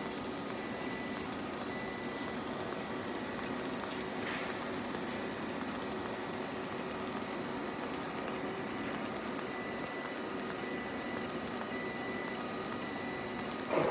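Robotic welding machine arc-welding a tube-to-tube joint: a steady hiss of the arc with a low machine hum, and a faint high whistle that comes and goes.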